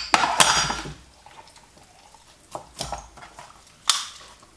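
Large kitchen knife cutting up a whole raw chicken on a plastic chopping board: a quick run of cutting strokes in the first second, then a few separate knocks of the knife and meat on the board, the sharpest about four seconds in.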